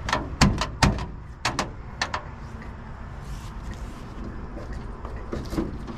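Old truck's steel cab door being tried: sharp metal clanks and knocks from the latch and handle, about seven in the first two seconds, as the door refuses to open.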